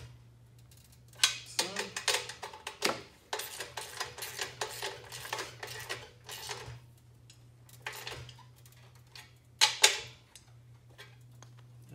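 Hand socket ratchet clicking in quick runs as the nuts on a motorcycle's slip-on muffler mounting brackets are tightened, with a few louder metal clanks, one about a second in and another near ten seconds.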